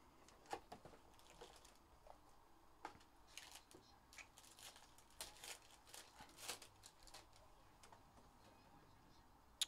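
Faint crinkling and tearing of a foil-wrapped 2022 Panini Playbook football card pack being opened by hand, in scattered short rustles, then the soft sounds of the cards being handled.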